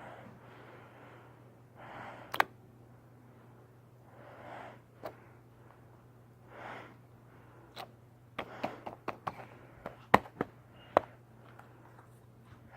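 Squishy noises: soft, wet-sounding squelches come in short swells, with sharp clicks and pops crowding together in the second half.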